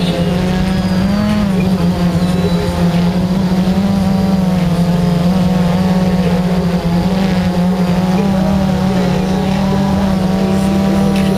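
Multirotor drone's propellers buzzing steadily, with a pitch that wavers slightly as the motors change speed.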